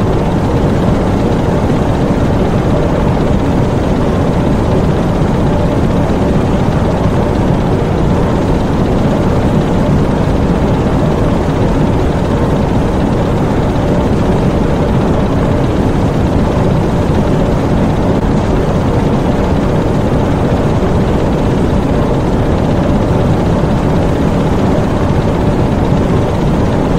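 Diesel engine room of a U-boat: the diesel engines running in a loud, unchanging drone.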